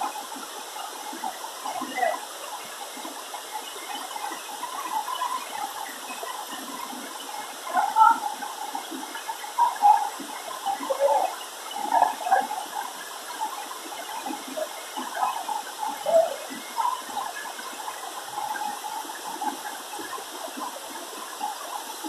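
Falling water rushing steadily, with irregular louder moments every couple of seconds.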